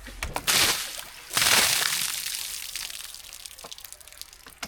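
Water that had pooled on top of something being opened spilling off: a short splash, then a louder rush of pouring water that fades away over about two seconds.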